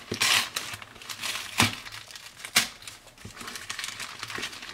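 Newspaper wrapping rustling and crinkling as it is unfolded and torn open by hand, with two sharp crackles about a second apart in the middle.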